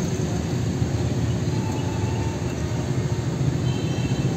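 Steady low mechanical rumble, like running engines, with faint high tones coming and going.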